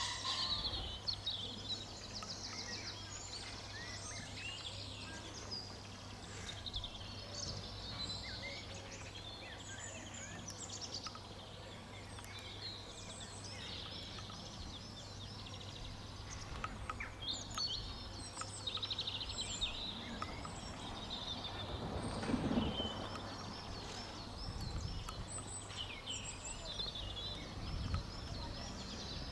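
Small songbirds chirping and trilling throughout over a steady low hum, with a brief louder low rumble about two-thirds of the way through.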